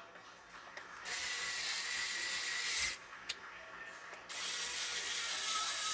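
Screwdriver driving screws into a multimeter's plastic case: two runs of about two seconds each, one about a second in and the other after a short pause.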